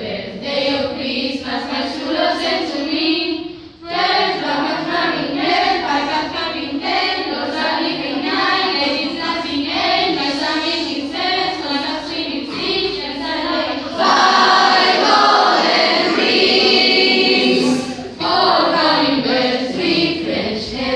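A group of schoolchildren singing a Christmas song together in chorus, with a short break about four seconds in and a louder passage near the end.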